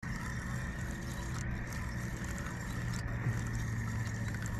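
Steady low engine-like hum over a low rumble, with a faint steady high-pitched tone above it.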